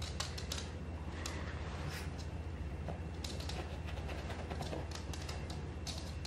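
Chihuahua rummaging in a felt snuffle mat, nosing and pawing through the flaps for treats: scattered small clicks and rustles over a steady low hum.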